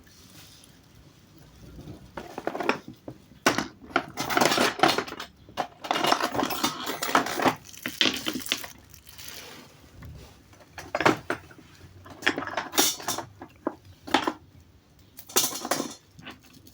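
Irregular clinking and clattering of hard, metallic objects being handled, in uneven bursts with short quiet gaps.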